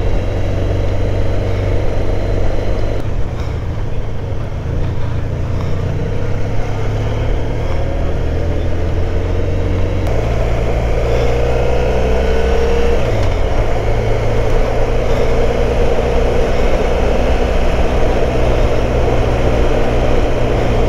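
Motorcycle engine running while riding along, with a steady rush of wind and road noise; the engine note shifts to a new pitch about three seconds in and again about ten seconds in, as with a change of gear or throttle.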